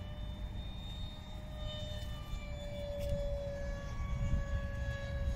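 Electric ducted fan of a Top RC Hobby Jet Star RC jet whining in flight. The whine rises a little in pitch at the start, then holds steady.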